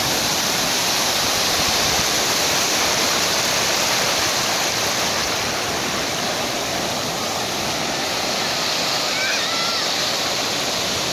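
Ocean surf breaking and washing up over the shallows: a steady rushing noise.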